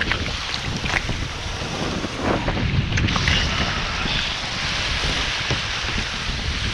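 Kayak paddle splashing through the water, with water sloshing around the kayak and gusty wind buffeting the microphone. A few short splashes come about once a second in the first few seconds.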